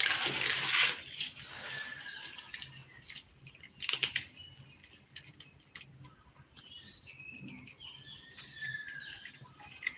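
Insects keep up a steady, high-pitched drone throughout. There is a short burst of noise in the first second and a sharp click about four seconds in.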